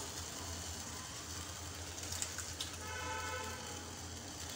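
Faint steady sizzle of masala simmering in a kadai over a low hum, with a brief pitched tone about three seconds in.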